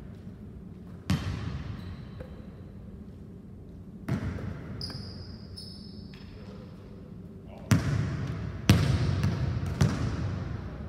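Basketball striking a hardwood gym floor and the player's hands: five sharp, irregularly spaced hits, each ringing out in the big hall's echo. A brief high squeak of sneakers on the court comes about five seconds in.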